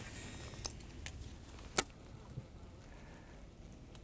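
Faint clicks of a baitcasting reel and rod being worked, with one sharp click a little under two seconds in.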